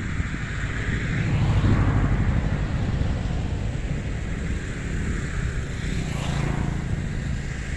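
Engine noise swelling about two seconds in and then easing off, over a steady low rumble of wind on the microphone.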